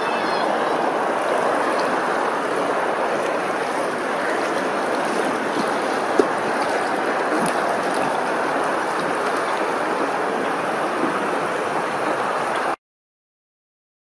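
Steady rush of flowing water, which stops abruptly near the end.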